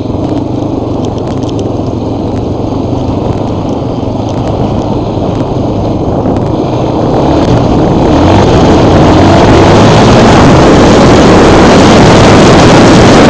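Offroad vehicle's engine running hard, heard through a vehicle-mounted microphone with heavy rumble and wind buffeting. About eight seconds in it grows much louder and harsher, close to overloading the recording.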